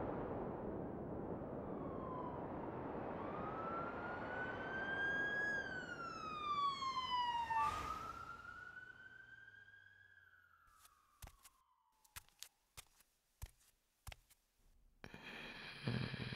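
Steady rush of wind in a snowstorm, fading, under an emergency vehicle's wailing siren that rises and falls twice and dies away. Near the end come a few sharp clicks and a brief electronic tone.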